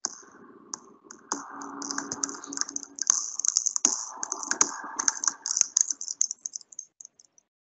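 A rapid, irregular run of clicks and rattles, like keys being typed, that starts abruptly and thins out near the end.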